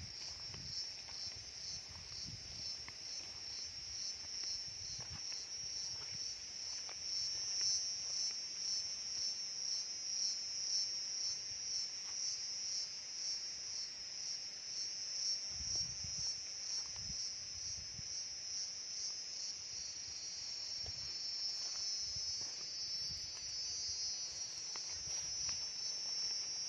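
Insects chirring in a steady high-pitched chorus with a fast, even pulse that turns into a wavering drone about three-quarters of the way through. Faint low knocks sound now and then underneath.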